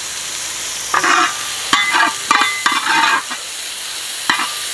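Sliced onions sizzling in oil with salt in a wide metal pan, being softened as a curry base. A spatula scrapes and stirs them in a run of short strokes from about a second in, with one more sharp scrape near the end.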